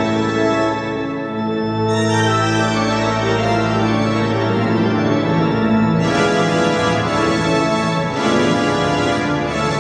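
Church pipe organ playing sustained chords over a long-held low bass note, the sound growing fuller and brighter about two seconds in and again around six seconds.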